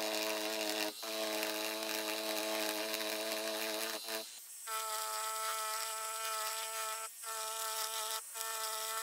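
Electric needle felting machine buzzing steadily as its motor drives the needles into wool, heard at sped-up playback. The buzz cuts out briefly about a second in, changes pitch a little before halfway, and breaks twice more near the end.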